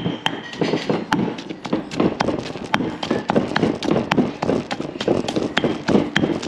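Stone mortar and pestle pounding soaked red chilies into curry paste: the heavy pestle strikes the mortar in a steady rhythm of about two knocks a second.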